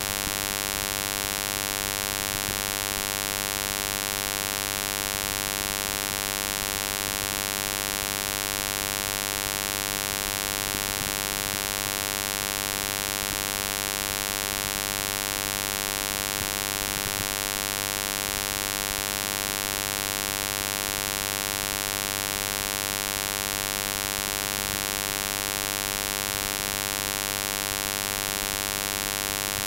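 Steady electrical mains hum with a buzz of many overtones and constant hiss, unchanging throughout.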